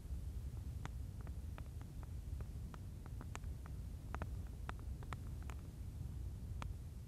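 Wood fire in a stone fire ring crackling, with irregular sharp snaps and pops, several a second, over a low steady rumble.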